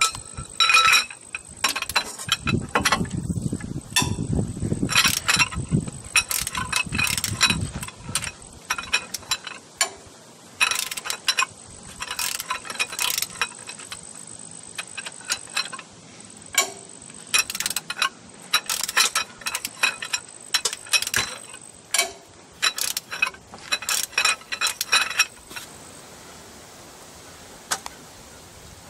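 Ratchet wrench clicking in repeated bursts as the rocker-shaft bolts on a Cummins ISX diesel engine are backed out. A duller low rumble of knocks runs from a few seconds in to about eight seconds, and the clicking stops near the end.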